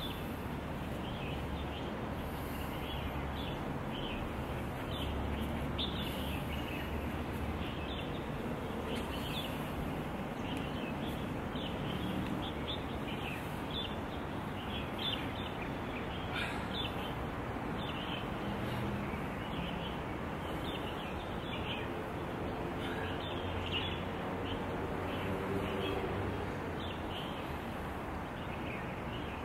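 Birds chirping, many short high chirps scattered over a steady outdoor background noise.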